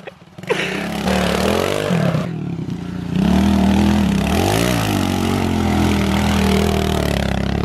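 Small dirt bike engine revving up and down, its pitch rising and falling with the throttle, with a short gap about two and a half seconds in.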